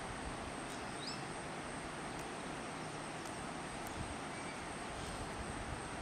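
Steady rush of a shallow, rocky river flowing over stones, with a brief high chirp about a second in.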